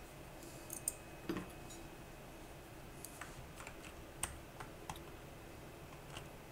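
Scattered light plastic clicks and taps from a Machenike K500 mechanical keyboard being handled, about a dozen at irregular intervals.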